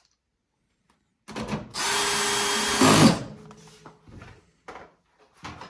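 Power drill running steadily for about a second, driving a screw during dryer reassembly, ending in a brief louder burst as it stops; light clicks and knocks of handled parts before and after.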